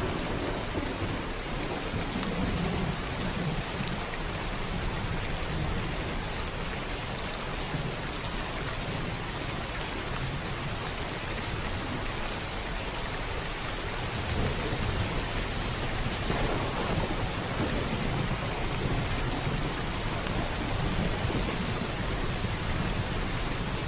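Heavy rain pouring steadily on a roof, with thunder rumbling in low swells, the strongest about two-thirds of the way through.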